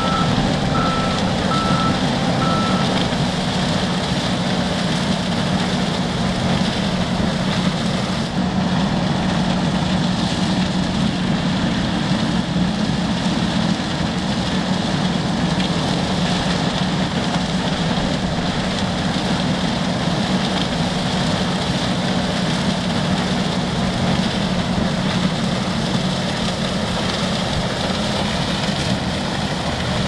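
John Deere T670i tracked combine harvester running steadily under load while harvesting grain corn: a loud, even engine and threshing drone. A reversing alarm beeps about twice a second for the first three seconds, then stops.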